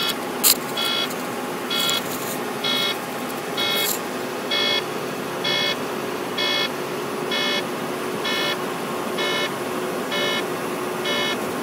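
Volvo semi truck's cab warning beeper sounding a steady string of short beeps, about one a second, over the cab's road noise: a recurring false alarm that the mechanic puts down to a bad sensor. A sharp click comes about half a second in.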